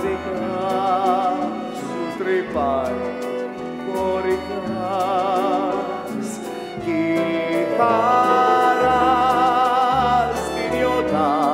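A male singer from a stage musical holding long notes with wide vibrato over instrumental accompaniment.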